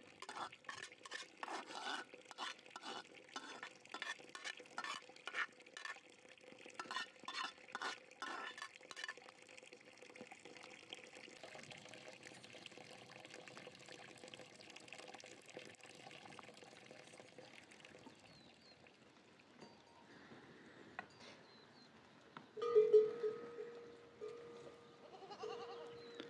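A metal slotted spoon clinking against a metal colander and aluminium pot as cooked rice is knocked off it, about twice a second for the first nine seconds or so. Near the end a goat bleats loudly, several times.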